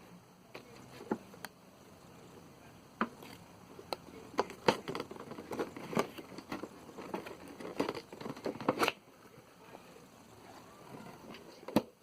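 Packaging being handled and opened: crinkling and rustling with scattered clicks and taps, busiest in the middle, then a single sharp click near the end.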